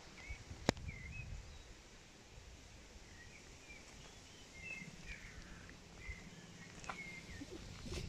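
Small birds chirping in short, scattered calls over a faint outdoor background with a low rumble. A single sharp click a little under a second in.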